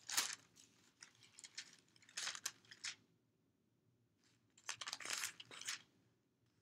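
Paper rustling as pages are turned, in several short bursts, the longest about five seconds in.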